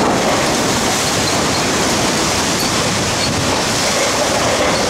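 Hurricane wind and rain: a loud, steady rushing noise with no letup.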